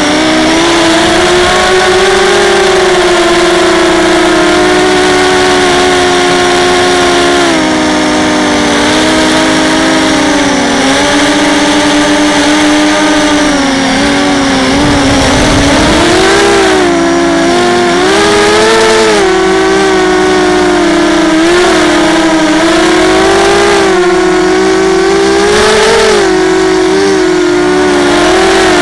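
ZMR250 racing quadcopter's brushless motors and propellers whining in flight, heard from a camera mounted on the craft. The pitch rises and falls constantly with the throttle, dropping low briefly about halfway through.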